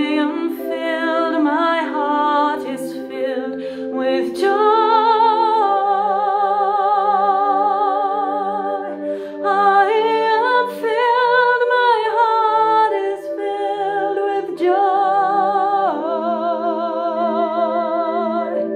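A woman singing long held notes with vibrato, without words, over a steady sustained chord from a small accompanying instrument.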